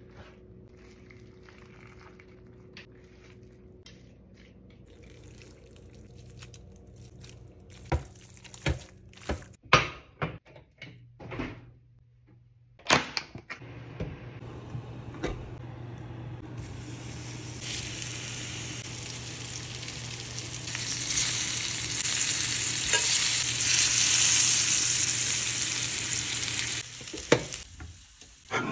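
Pineapple chunks frying and sizzling in a stainless steel skillet, a steady hiss that builds up and stops shortly before the end. Before the sizzle starts, a cluster of sharp knocks and clanks from the pan and utensils.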